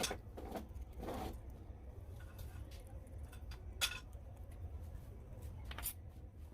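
Scattered light clicks and scraping rustles of small parts being handled, with sharp clicks about four and six seconds in, over a steady low hum.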